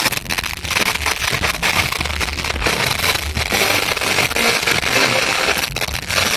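Arena crowd noise mixed with a wrestler's entrance music over the PA, loud and crackling on a phone's microphone, with a thudding bass beat.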